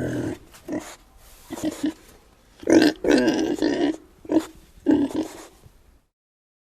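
An animal giving a series of short pitched calls, about seven in six seconds, the loudest near the middle, then cutting off abruptly.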